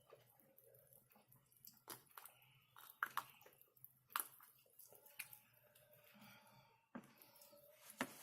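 Soft, wet chewing and mouth clicks from eating mashed potato close to the microphone, with a few sharper smacks about three and four seconds in and near the end.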